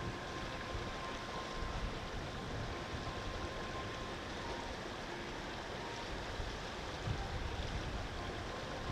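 Steady rushing wind, with an uneven low rumble from gusts buffeting the microphone.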